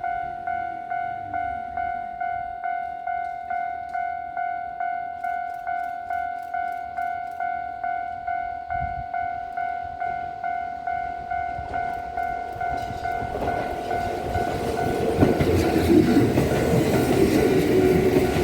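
Level crossing warning bell ringing a steady electronic ding, about two strokes a second. From about thirteen seconds in, a Kintetsu 1026-series electric train comes in louder and passes, its wheels clattering over the rail and all but drowning out the bell.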